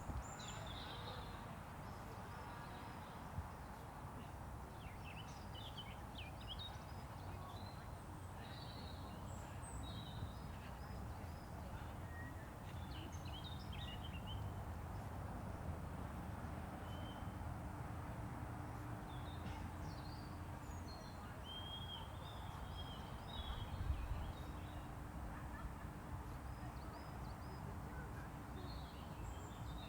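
Outdoor ambience: small birds chirping and trilling on and off, over a steady low background rumble with a faint steady hum.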